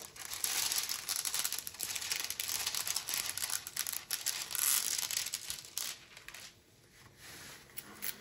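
Green plastic scraper rubbing in strokes across a creased diamond-painting canvas under its clear plastic film, crinkling the film as the canvas is smoothed flat. The rubbing dies down after about six seconds, leaving faint handling.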